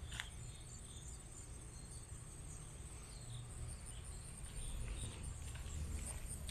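A steady, high-pitched insect chorus of crickets trilling, over a low rumble. Faint footsteps on the concrete path come in near the end.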